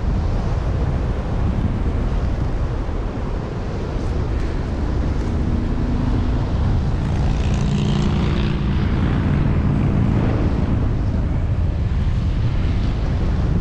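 Airflow rushing over a jumper's helmet-mounted camera microphone during the descent, a steady loud wind rumble. About five seconds in, a faint engine hum rises and then fades about ten seconds in.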